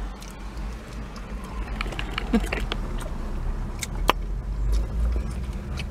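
Low steady rumble in a car cabin, with scattered small clicks and rustles from handling food in a foam takeout box, and a brief faint murmur of a voice a little after two seconds.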